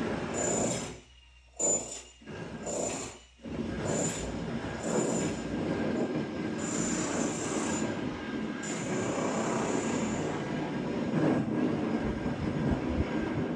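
Construction-site machine noise: a high-pitched screeching comes in short repeated bursts over a continuous harsh grinding din.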